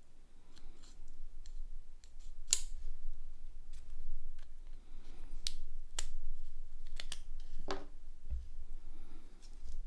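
A series of sharp, separate clicks and snips, about a dozen over several seconds, from small plastic and metal parts of a mobile phone being handled and taken apart.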